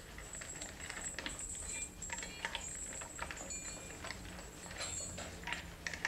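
Irregular small knocks and clinks, several a second, over a low rumble and a faint steady high whine.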